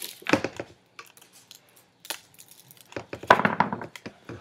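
Taped bundles of PVC-pipe rails being cut open and handled: rustling of tape and wrapping with knocks and clicks of the plastic rails, in two bursts, the louder about three seconds in.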